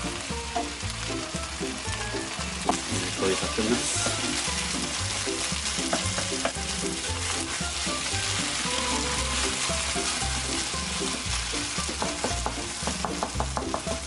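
Kimchi fried rice with thin-sliced pork belly sizzling in a hot non-stick pan while a wooden spatula stirs and turns it, with a quick run of spatula scrapes and taps near the end.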